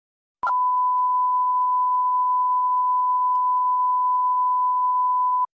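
A steady pure test tone at about 1 kHz, a single unbroken beep lasting about five seconds, that starts and stops abruptly.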